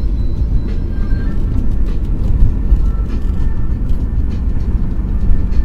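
Steady low rumble of a car on the move, heard from inside the vehicle.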